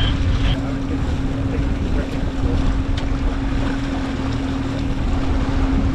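Boat engine running with a steady low hum, under wind buffeting the microphone and the rush of water past the hull.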